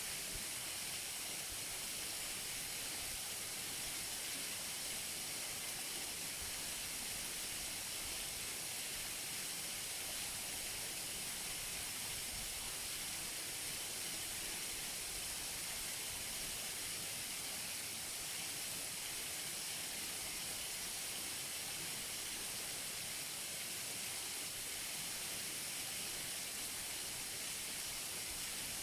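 Waterfall: water pouring and splashing in a steady, unbroken hiss, strongest in the high end.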